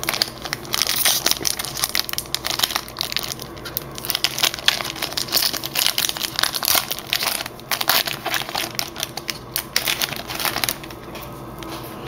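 Foil trading-card pack wrapper crinkling and crackling as it is handled and crumpled by hand; the crackling stops about a second before the end.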